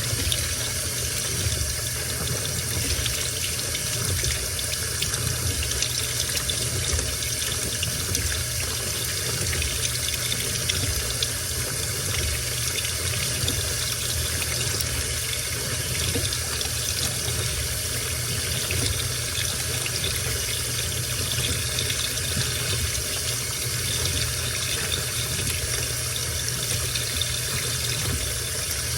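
Washing machine filling with water: a steady rush of water pouring into the drum.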